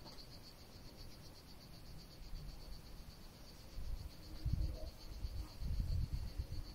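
Insects chirping in a steady, high, pulsing trill, with low thumps and rumble from about four seconds in.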